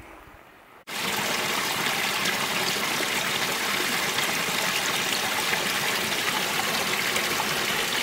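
Small mountain stream cascading over a rock ledge into a pool, a steady splashing rush that starts abruptly about a second in.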